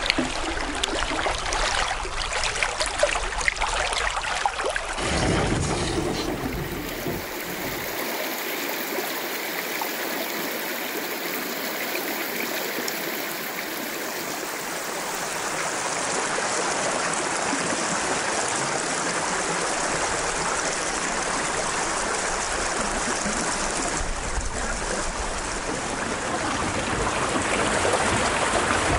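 Running river water, a steady rushing over a shallow stretch, with some low knocks in the first few seconds.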